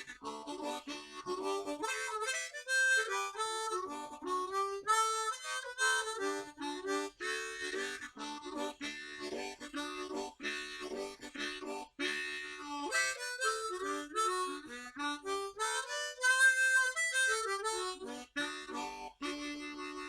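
Harmonica music playing a quick melody of short notes, settling into one held low note near the end.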